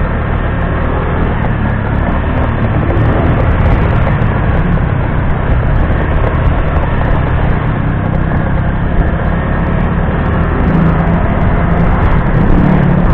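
Motorcycle ridden slowly, heard from the rider's seat: a steady, loud rumble of its engine and road noise. It grows a little louder near the end as another motorcycle passes close by.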